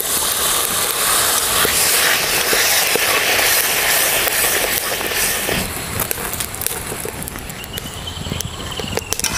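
Water poured into a kadai of hot fried masala, hissing and sizzling loudly as a ladle stirs it in. The sizzle dies down after about five and a half seconds.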